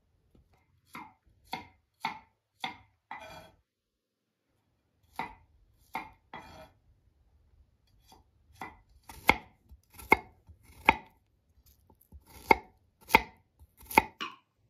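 Kitchen knife cutting peeled garlic cloves on a wooden cutting board: single, separate cuts about one or two a second, in three runs with short pauses, the later cuts louder.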